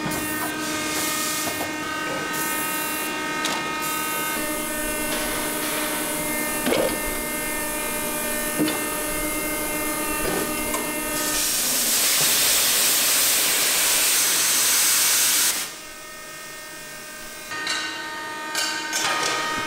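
Heavy hydraulic factory machine running with a steady hum of several tones and a few sharp knocks. About halfway through, a loud hiss starts, lasts about four seconds and cuts off suddenly, followed by a quieter stretch before the hum returns.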